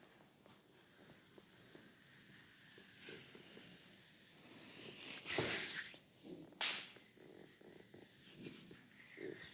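Hands massaging an oiled leg: soft continuous rubbing and rustling of skin, with one louder sweeping stroke a little past the middle and a short sharp hit just after it.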